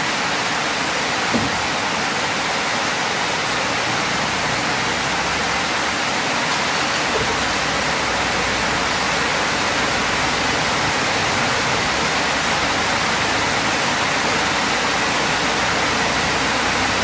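Heavy rain pouring down in a steady, even hiss. From about seven seconds in, the Mitsubishi L300's engine idles faintly underneath as a low hum.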